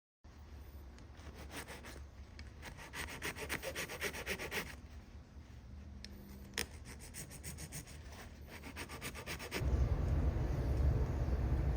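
Rapid back-and-forth scraping strokes of a small part being worked down by hand with an abrasive. Near the end, a louder steady low rumble takes over.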